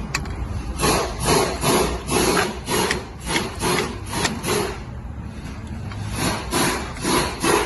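Hand ratchet wrench worked back and forth on a brake caliper nut, rasping at about three strokes a second, pausing about five seconds in and then starting again near the end.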